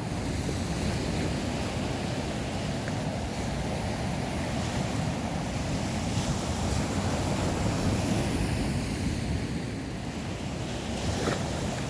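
Sea waves washing onto the shore, with wind buffeting the microphone. The surf swells a little around the middle, and there is a small click near the end.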